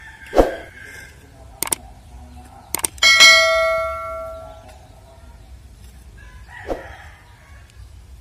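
A metal object struck once, giving a loud ringing clang a little after three seconds in that fades away over about a second and a half. A few sharp clicks come just before it, and there are two short noisy blips, one near the start and one near the end.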